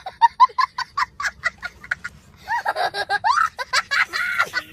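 A man laughing: a rapid run of short, high-pitched laughs for about two seconds, then longer laughs that rise and fall in pitch.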